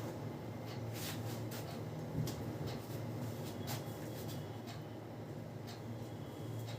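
Hands rubbing and lightly tapping skin and hair during a massage: soft, irregular clicks and rustles over a steady low hum.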